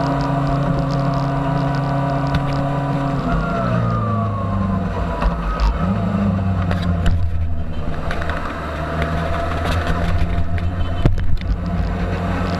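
Suzuki GSX-R750 K9's inline-four engine running at low speed, heard from on the bike; the engine note drops about three seconds in as the bike slows, then holds steady at a lower pitch, with a brief rise near six seconds. A few sharp knocks near the end.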